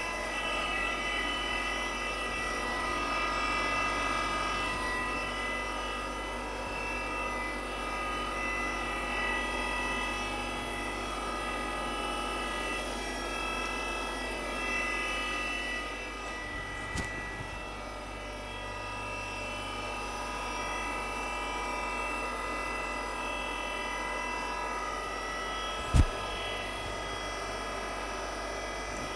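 CNC milling machine spindle running a small end mill through the intake port of a Mazda Renesis rotary engine's cast-iron center housing: a steady high whine made of several held tones. There is a light click about 17 seconds in and a single sharp knock about 26 seconds in.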